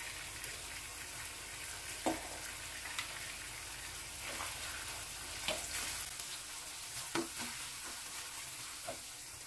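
Shrimp, mushrooms and cherry tomatoes sizzling steadily in olive oil in a frying pan, with about five short clicks of a spatula against the pan as the food is stirred.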